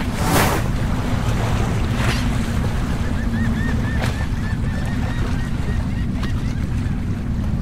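Seaside ambience: wind rumbling on the microphone over the wash of sea waves, with a few brief louder rushes.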